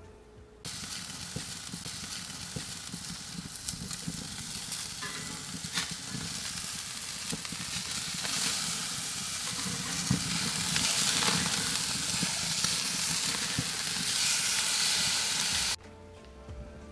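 Ribeye steaks sizzling on the grate of a charcoal kamado grill, with scattered crackles over the hiss. It starts suddenly about a second in, grows louder in the second half and cuts off just before the end.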